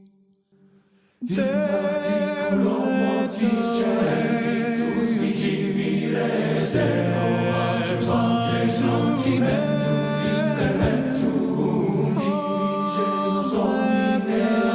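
Background music: unaccompanied choir singing a sacred piece, coming in after about a second of near silence.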